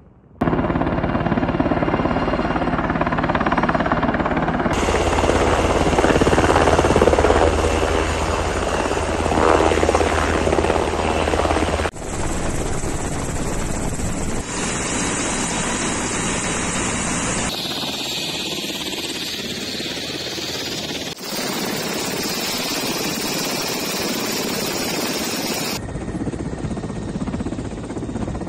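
Black Hawk helicopter's engine and rotor running close by, a loud steady noise. Several short clips are joined, so the sound changes abruptly every few seconds.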